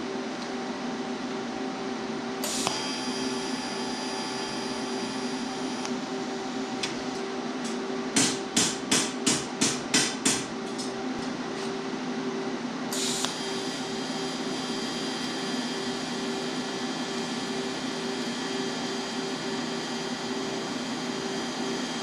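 A quick run of seven hammer blows on thin sheet metal, about three a second, over a steady machine hum in the shop, with a high whine that sets in twice.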